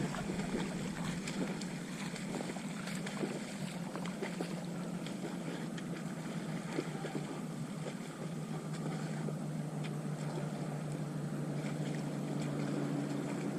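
Distant engine running with a steady low drone, its pitch dropping about eight seconds in, over light wind and faint scattered ticks and splashes.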